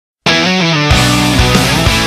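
Rock music starts a moment in: a few stepping notes first, then the full band with drums joins about a second in.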